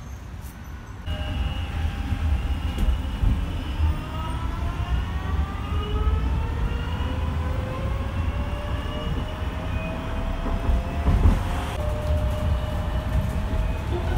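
Inside an electric tram pulling away: the traction drive whines in several tones that rise steadily in pitch as it speeds up, over a low rumble from the wheels and running gear. The whine starts about a second in and drops to a lower pitch near the end.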